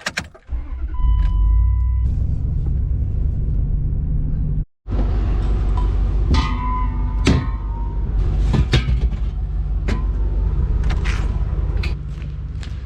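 Pickup truck engine running with a steady low rumble, a short beeping tone about a second in, and a series of knocks and clanks through the second half.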